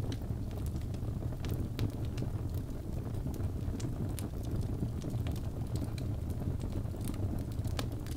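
Wood fire burning: a steady low rumble of flames with frequent irregular sharp crackles and pops from the burning logs.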